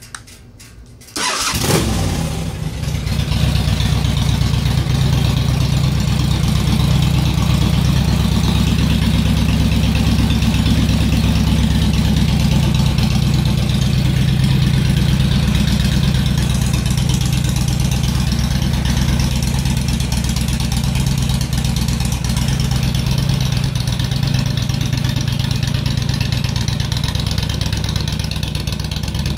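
2007 Honda VTX1300R's V-twin engine started on the electric starter about a second in, cranking briefly and catching at once, then idling steadily.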